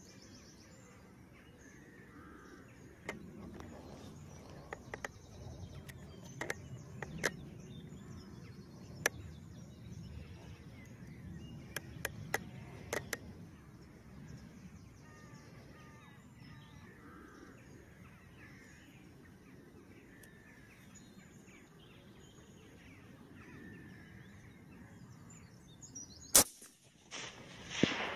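Open-field background with faint birdsong and a few scattered sharp clicks, then near the end a single rifle shot, the loudest sound by far, followed less than a second later by a second, longer burst of sound.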